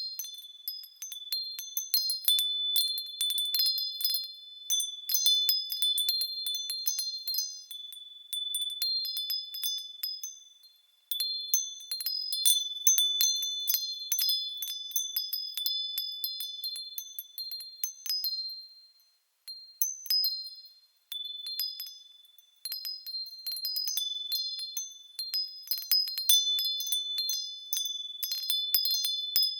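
Wind chimes tinkling in a breeze: many quick, high-pitched strikes ringing over one another. The ringing dies away briefly twice, about ten and twenty seconds in, before the chimes are struck again.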